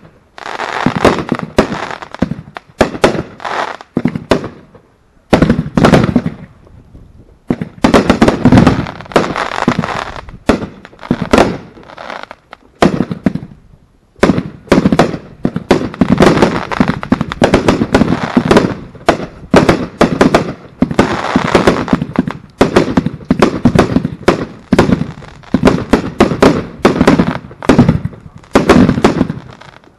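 Aerial fireworks going off overhead: a rapid, loud string of bangs and bursts, broken by short pauses about 5, 7 and 13 seconds in.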